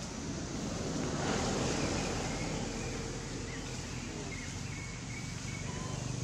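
Outdoor ambient noise: a steady low rumble and a hiss that swells about a second in and fades again, with faint short chirps repeating throughout.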